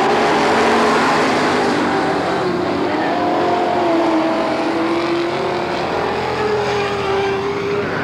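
Several dirt-track stock car engines running together, their pitch rising and falling as the cars go around the track.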